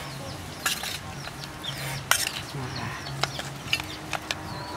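A spoon stirring wet curry in a stainless-steel bowl, with several sharp metal clinks against the bowl, the loudest a little after two seconds in. Birds chirp in the background.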